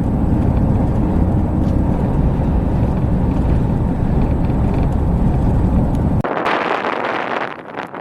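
Strong wind buffeting the microphone as a heavy, steady low rumble that cuts off abruptly about six seconds in. It gives way to a gusting, brighter rush of wind.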